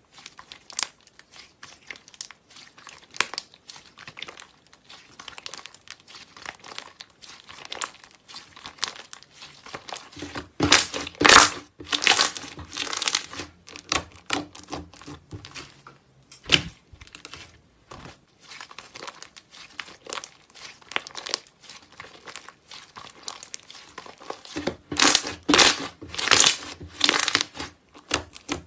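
Thick slime being stretched and pressed with the fingers, giving a steady run of small crackling clicks. Two louder, denser runs of crackles come about a third of the way in and again near the end.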